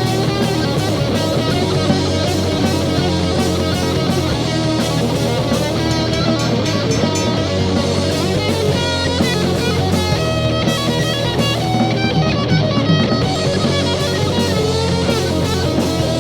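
Rock band playing an instrumental break: electric guitar over bass and drum kit, loud and steady.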